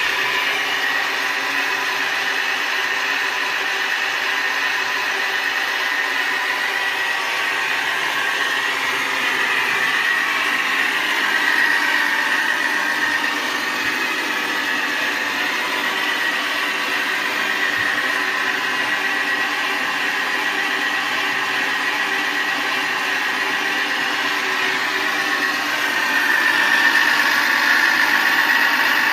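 Sound unit of a 1/6-scale Faun model truck playing a simulated engine sound through a small speaker, with a steady high tone and hardly any bass. It grows a little louder near the end.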